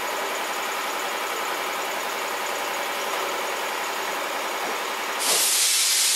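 A machine running steadily, then a loud hiss for about a second near the end that cuts off sharply.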